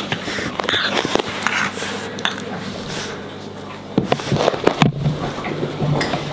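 Irregular knocks, scrapes and rustles of close play: a French bulldog puppy scuffling on a rug with a hand, with handling knocks from the phone held close, and a cluster of sharper knocks about four seconds in.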